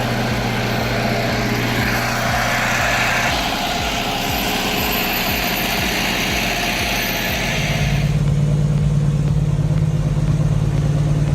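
Heavy diesel engine of an LKT forestry skidder running hard under a heavy load. About eight seconds in, the high hiss falls away and a lower, louder engine note takes over.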